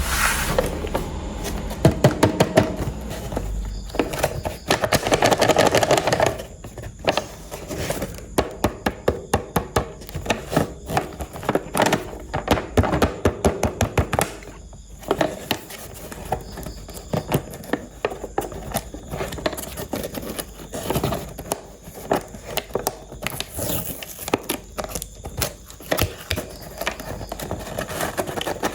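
Irregular clicking, tapping and rustling of plastic toy parts and packaging being handled.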